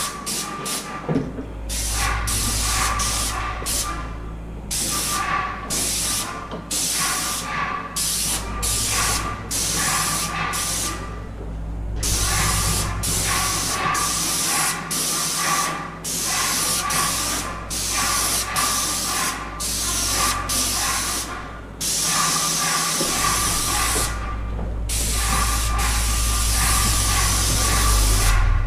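Airless paint sprayer at about 1400 PSI with a 310 fine-finish tip spraying primer and undercoat: short hissing bursts, over and over, as the trigger is pulled and released along each spindle. A steady low hum runs underneath.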